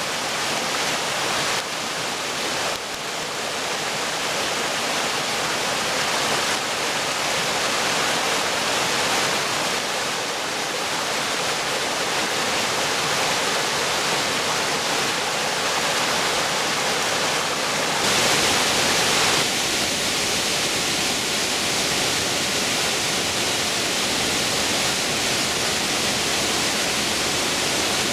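Small waterfall cascading over rock ledges into a rocky brook: a steady rushing of falling water. About two-thirds of the way through, the sound turns hissier for a moment and then settles into a slightly different tone.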